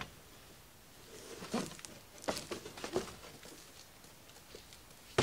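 Cardboard product box being searched and lifted: a cluster of rustles, scrapes and light knocks starting about a second in and lasting a few seconds.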